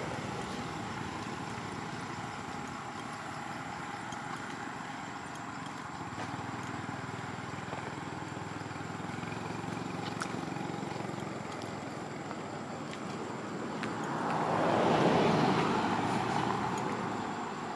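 A car drives past on the road, its engine and tyre noise swelling up and fading away about fourteen to sixteen seconds in, over a steady background of outdoor road noise.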